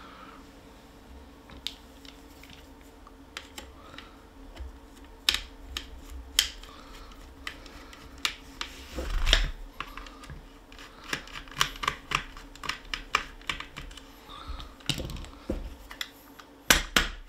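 Scattered light clicks and taps of a small screwdriver working screws out of a stripped-down Umarex HDX 68 pump-action CO2 launcher, with the gun's parts being handled. There are a few louder knocks about nine seconds in and near the end.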